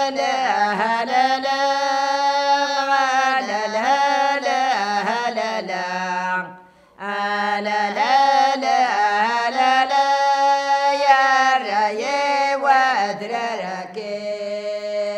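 Women singing acewwiq, the unaccompanied Kabyle chant, in long held notes that bend and waver, with a short pause for breath about halfway through.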